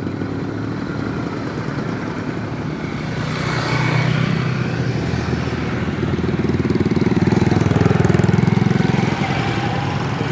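A motor vehicle's engine running, with a pass or swell about four seconds in and growing louder for a few seconds before the end.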